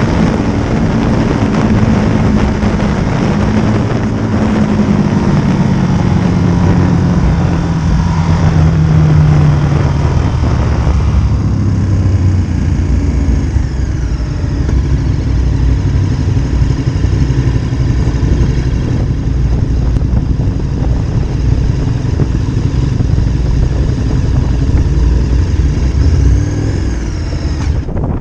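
Motorcycle engine heard from the bike while riding, under heavy wind noise; the engine note falls over the first ten seconds as the bike slows down, then it runs at low speed with much less wind, and the sound drops near the end as the bike pulls up.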